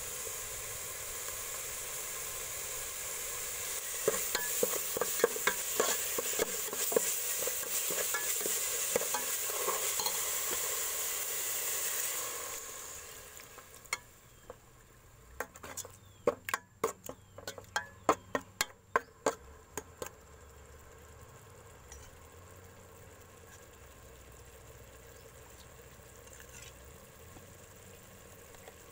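Garlic and chili paste sizzling in hot oil in an aluminium pot while a metal ladle stirs it, clinking and scraping against the pot. About halfway through the sizzle stops abruptly, leaving a faint hiss, and a quick run of ladle clinks against the pot follows.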